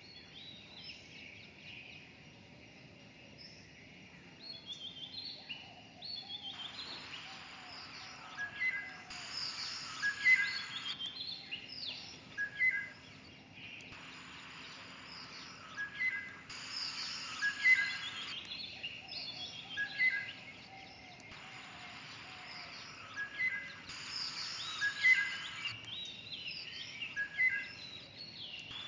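Birds chirping and calling in quick short notes and trills. The same stretch of calls repeats about every seven and a half seconds, as a looped bird recording does.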